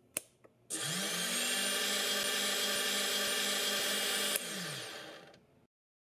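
Small brushless outrunner motor, held in the hand, spinning up after a click or two, running at a steady speed for about four seconds, then cutting off and winding down. It is the motor function test of the repaired drone flight-control board: the motor is driven from the transmitter through the board's output.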